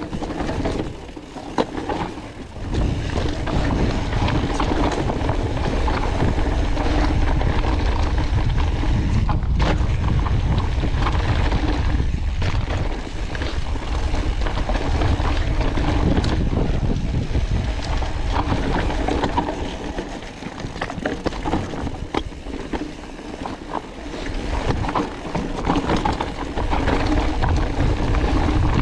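Wind buffeting the action camera's microphone as a mountain bike rolls down a rocky dirt singletrack, with tyre noise and the bike rattling over bumps. The wind rumble drops off briefly twice, once near the start and once about two-thirds of the way through, as the bike slows.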